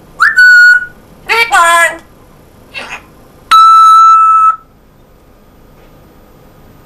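African grey parrot mimicking a microwave oven's beep: a short beep, a brief speech-like call, then a longer held beep of about a second.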